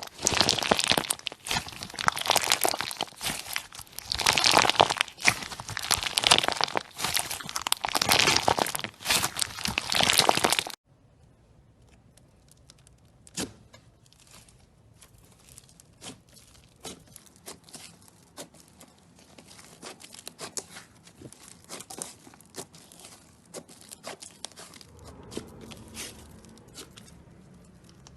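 Hands squeezing and stretching slime: dense, loud crackling and crunching, typical of crunchy slime. About eleven seconds in it cuts off abruptly to a much quieter stretch of scattered small pops and clicks as the slime is pressed.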